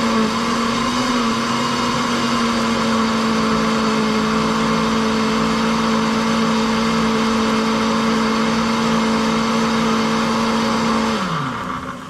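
Electric countertop blender running steadily as it purées tomatoes, one constant motor hum. About eleven seconds in it is switched off, and its pitch falls as the motor spins down.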